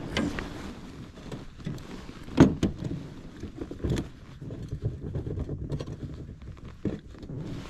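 Knocks and thumps of gear being handled in a fishing boat, over a low steady rumble, with one sharp loud knock about two and a half seconds in and another about four seconds in.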